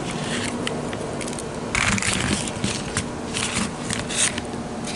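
Rustling and scraping handling noise, with irregular crackles, as transmission parts are handled and compared close to the microphone, over a faint steady hum.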